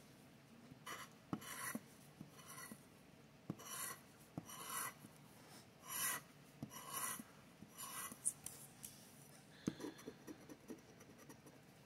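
A scratcher scraping the coating off a scratch-off lottery ticket in a series of short, faint strokes, roughly one or two a second, with small clicks of the tool on the card between them.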